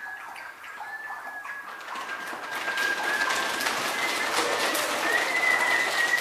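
A class of young children making a rainstorm with body percussion: scattered clicks and taps swell from about two seconds in into a loud, dense rushing patter. A thin, high, steady whistle-like tone runs through it.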